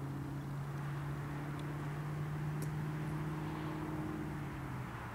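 A distant motor's steady, pitched hum over a soft hiss. It swells through the middle and fades near the end, as something passes by.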